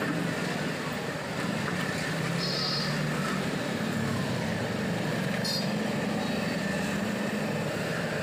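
Steady street traffic noise of passing motorbikes and scooters, with a short high-pitched tone about two and a half seconds in and a sharp click near the middle.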